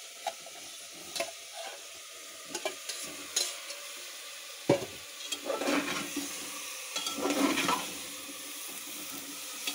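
Steel ladle stirring and scraping chopped pumpkin and vegetables in an aluminium pressure cooker pan, over a sizzle of oil and spices. A few sharp clinks of the ladle against the metal come in the first half, then a longer spell of scraping and stirring in the second half.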